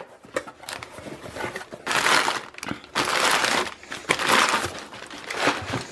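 Crumpled newspaper packing crinkling and rustling in several bursts as a hand digs it out of a cardboard box.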